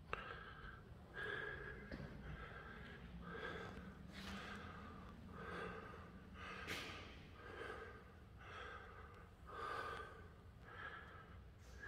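A person's breathing, quiet and regular, with a short breath about once a second.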